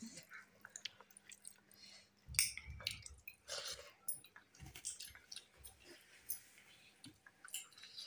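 Faint chewing of a mouthful of rice and potato dal, with soft irregular clicks and wet squishing from rice being mixed by hand on a plate.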